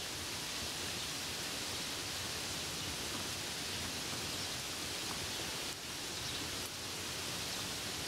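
Steady rain falling on grapevine leaves, an even hiss with no let-up.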